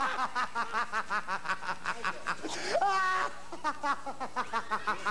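Clowns laughing in a fast, high-pitched run of ha-ha syllables, with one rising and falling whoop about halfway through.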